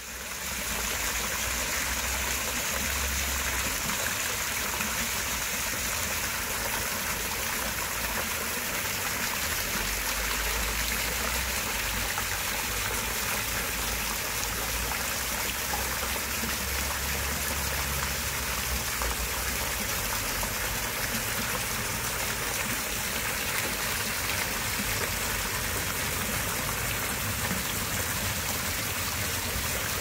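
Water pouring off a small garden water wheel and a fountain jet splashing into a pond: a steady rush of running, splashing water that fades in over about the first second.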